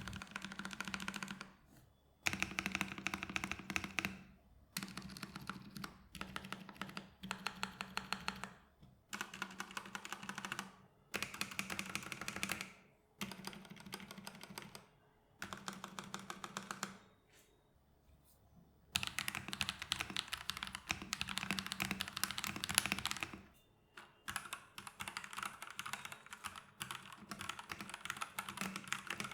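Modded Redragon K617 Fizz 60% mechanical keyboard typed on in quick runs of keystrokes, in short stretches broken by brief pauses. It is fitted with Akko Lavender Purple switches, EVA foam in the case, a tape mod, and stabilizers lubed with dielectric grease.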